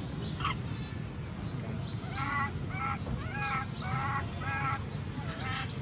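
Baby macaque crying: a run of short, high-pitched screeching cries, about two a second from about two seconds in. These are an infant's distress calls.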